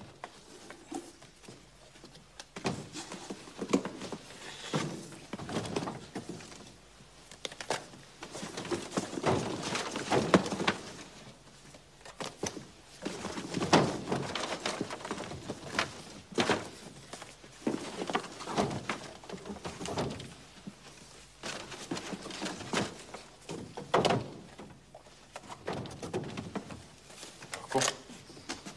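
Rustling of stiff paper wrapping and cardboard, with irregular knocks and thuds, as a cardboard box of packets is searched through by hand.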